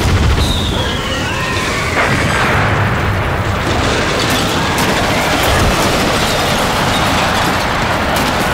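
A falling-bomb whistle gliding down in pitch, cut off about two seconds in by an explosion, followed by a continuous rumbling, noisy din.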